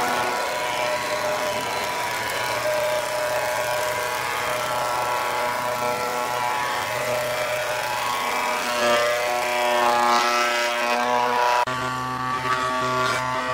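Combination woodworking machine's planer cutterhead running steadily and planing a wooden board, its motor hum and the rush of chips being cut.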